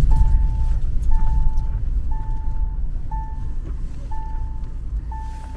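A vehicle's electronic warning chime beeping steadily about once a second, each beep one short high tone, heard inside the cabin over the low rumble of the engine and tyres, which gradually fades.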